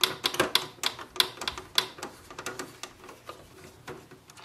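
Hand screwdriver undoing a screw in the plastic ink-tank housing of an Epson EcoTank printer: a quick run of sharp clicks, several a second, thinning out after about two seconds.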